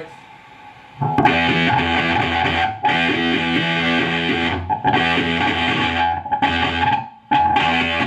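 Electric guitar played through the Gee Fuzz prototype pedal, a copy of the Earth Sound Research Graphic Fuzz, into a tube amp. Fuzzed chords are strummed in short phrases, starting about a second in.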